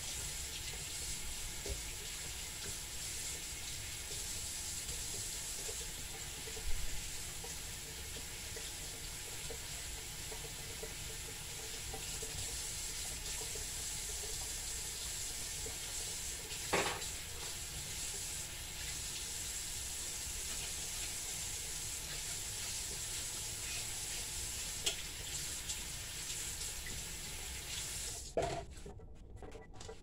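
Kitchen tap running steadily into the sink while something is rinsed under it, with a couple of brief knocks; the water is shut off about two seconds before the end.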